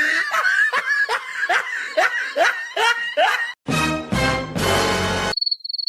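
A run of short, rhythmic laughing calls, about two or three a second, for the first three and a half seconds. Then a brief burst of music, and a short high warbling tone near the end.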